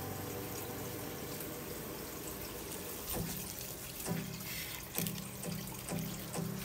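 Water running and splashing, with a few sharp clicks and knocks.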